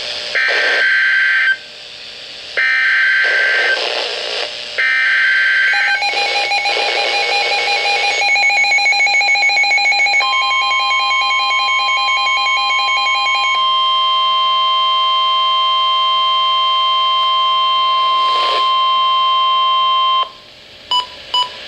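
NOAA Weather Radio emergency alert signals. First come three short buzzy SAME digital header bursts, then a second alert tone that pulses rapidly for a while. Then the steady 1050 Hz weather alarm tone sounds for about ten seconds, ending in three short beeps.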